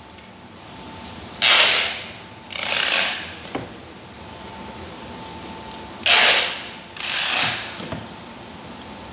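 Packing tape ripping off a handheld tape dispenser in four short, loud pulls, in two pairs a few seconds apart.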